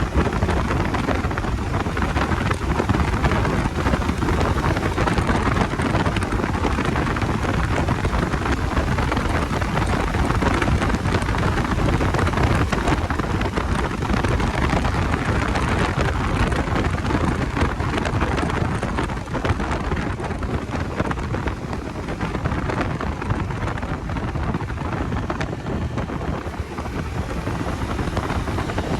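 Bajaj Dominar 250 motorcycle's single-cylinder engine running while riding, with heavy wind rush on the microphone, steady and loud.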